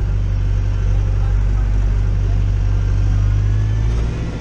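Massey Ferguson 5440 tractor's four-cylinder diesel engine running steadily, heard from inside the cab, with a brief dip near the end.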